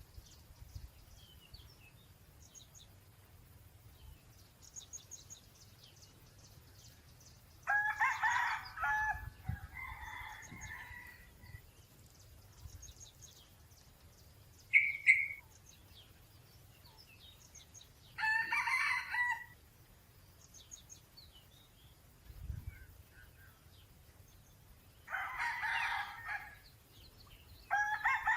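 Red junglefowl crowing four times, each crow lasting about a second, with small birds chirping faintly in between.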